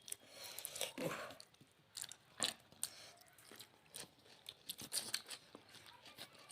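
Close-up eating sounds: chewing and crunching with many short, irregular clicks from a mouthful of rice, curry and salad.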